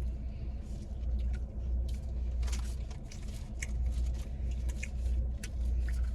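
Close-up chewing and mouth sounds of someone eating fast food, a scatter of short crackles and clicks, over the steady low rumble of a car.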